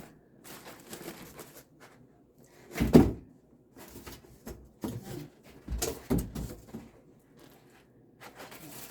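Moulded cardboard packaging and a boxed appliance being handled and pulled apart: scattered rustling and scraping, a loud thump about three seconds in, and a few more knocks around six seconds.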